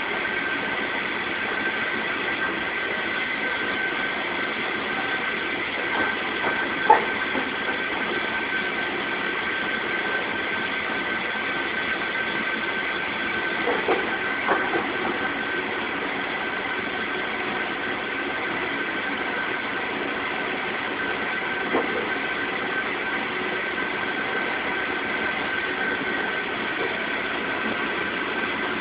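Steady mechanical hum with a constant high whine, like a motor running, broken by a few short faint squeaks about seven, fourteen and twenty-two seconds in.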